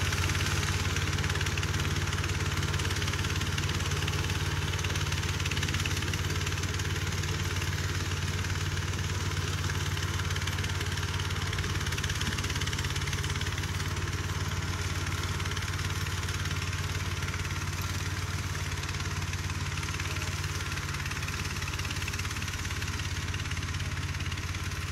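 The 20 hp engine of a flail-shaft grass mower running steadily, with a constant low hum and the even whir of the machine.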